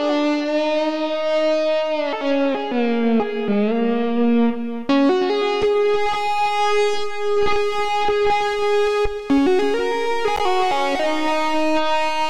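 ROLI Equator software synthesizer played from a Seaboard Rise, with held notes rich in overtones. About two seconds in the pitch slides down, and about five seconds in it jumps to higher held notes. The tone is modulated from the controller's touch pad.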